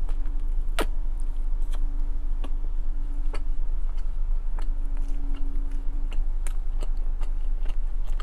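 Biting into and chewing a chili cheese dog close to the microphone: scattered, irregular wet mouth clicks, one sharper about a second in, over a steady low hum.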